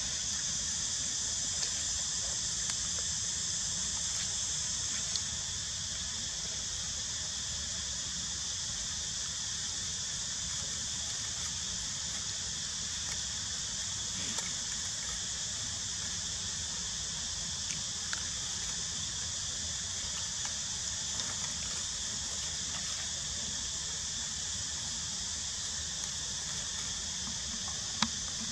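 Steady, high-pitched chorus of insects, an unbroken drone without pauses, with a few faint ticks and a sharp click near the end.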